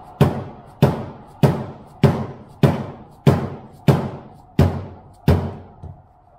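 Dead blow hammer striking a metal bracket held in a bench vise, bending it over the vise jaw: nine even, loud blows at a steady pace of a little under two a second, stopping about a second before the end.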